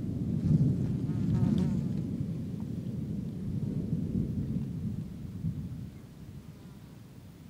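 Thunder rumbling: a deep rumble that swells at once, is loudest in the first two seconds and dies away slowly over about six seconds.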